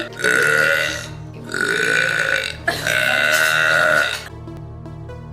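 A girl burping: three long, loud burps of about a second each, one after another, over background music that carries on after the last burp.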